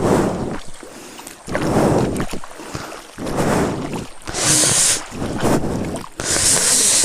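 Feet wading through a shallow, cold stream in slippers, splashing and sloshing water in repeated swells about every one and a half to two seconds.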